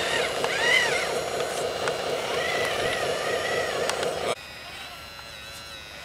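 Radio-controlled scale wheel loader working: small electric motors whining up and down in pitch over a dense steady mechanical noise as the bucket arm is lowered. A little over four seconds in, the sound drops suddenly to a much quieter, thinner whine.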